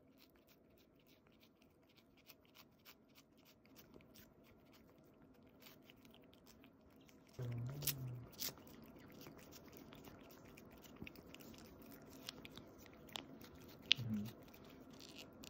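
A cat licking and smacking at a Churu lickable treat, a steady run of small wet clicks, about two or three a second. Two short, louder low sounds break in, one about halfway through and one near the end.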